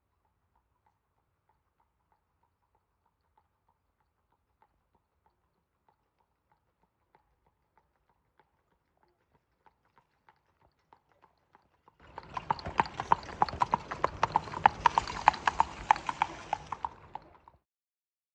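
Hoofbeats of a Tennessee Walking Horse gelding, faint and evenly spaced at first and growing louder as the horse comes closer. About twelve seconds in they turn loud and close for around five seconds, then cut off suddenly.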